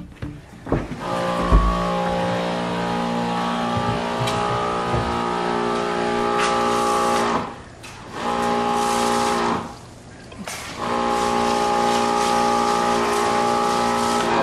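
Electric pressure washer's motor and pump running with a steady hum as a car is sprayed down. It starts about a second in, cuts out twice briefly past the middle as the trigger is let go, then runs on.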